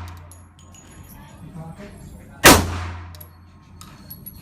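A single shot from a Smith & Wesson Bodyguard .380 pocket pistol firing PPU .380 ACP target ammunition, about halfway through, with a ringing decay. The tail of the previous shot is fading at the start.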